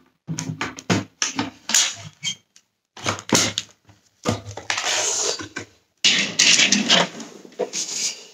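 Hard plastic parts of a Dyson Cinetic Big Ball vacuum being handled: the cyclone assembly pushed down onto the clear dust bin with a run of clicks, knocks and scraping, then the ball-shaped main body picked up and turned.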